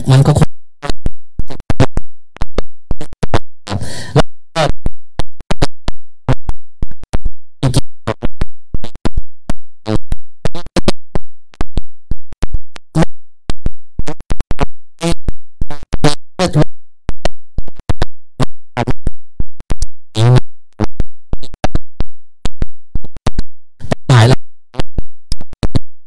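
Loud, rapid, irregular sharp cracks and pops, several a second, with a few brief pitched bursts like a voice mixed in.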